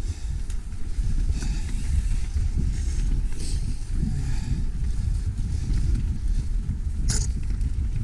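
Mountain bike riding down a dirt singletrack: a steady low rumble of wind on the microphone and tyres over the ground, with scattered rattles and a sharp clack about seven seconds in.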